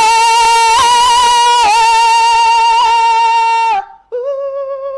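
A man singing a cappella in a high voice, holding one long note with vibrato for nearly four seconds. After a short break he sings a softer, shorter note.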